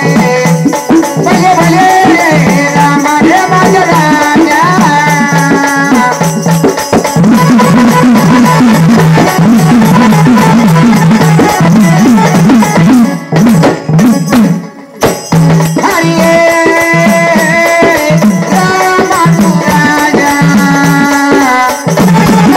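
Marathi jagran-gondhal folk music played loud: a melody instrument holds long notes that move in steps over a steady drum rhythm. In the middle the drumming turns into a fast, busy run, with a short break about 13 to 15 seconds in before the melody and beat return.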